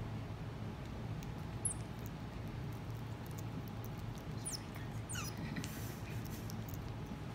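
Common marmoset giving a few short, very high squeaks that fall in pitch, one about two seconds in and several close together around five seconds in, over small clicks of it chewing banana.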